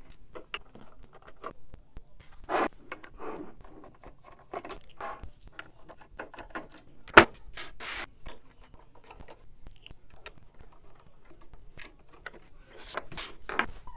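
Small screwdriver turning out the case screws of a TP-Link TL-SG3210XHP-M2 switch, with scattered small clicks, scrapes and handling knocks. One sharp click about seven seconds in is the loudest.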